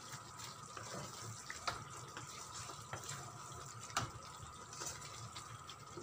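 Wooden spatula stirring and scraping a thick, simmering chicken and potato curry in a metal wok, with a few sharp knocks against the pan, the loudest about four seconds in. A steady hiss runs underneath.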